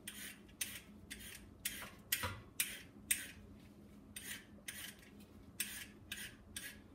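Vegetable peeler scraping down a carrot in quick, even strokes, about two a second.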